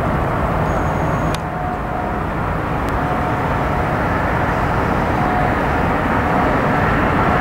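Airbus A380 on final approach, its four Rolls-Royce Trent 900 engines making a loud, steady rumble with a faint fan whine on top.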